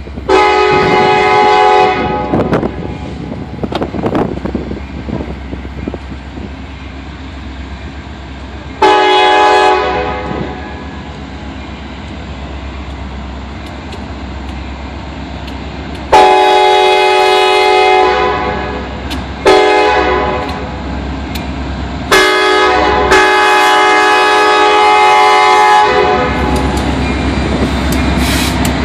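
Norfolk Southern diesel locomotive's multi-chime air horn blowing for a grade crossing as the train approaches: two long blasts about seven seconds apart, a long and a short, then a final long blast held for about four seconds. The locomotives' engines rumble loudly as they reach the crossing near the end.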